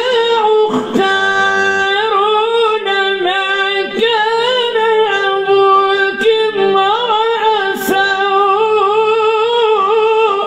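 A man's voice reciting the Quran in the melodic, sung style of tajweed, drawing out one long phrase on a held high note with wavering ornamental turns, then breaking off sharply at the end.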